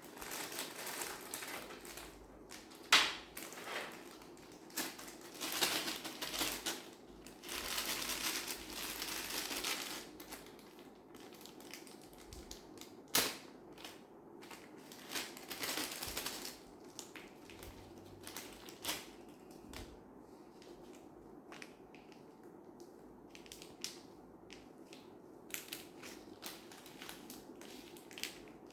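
Packaging being handled: rustling and crinkling in long bursts through the first ten seconds and again briefly in the middle, with a few sharp clicks or knocks. It thins out into scattered light ticks near the end.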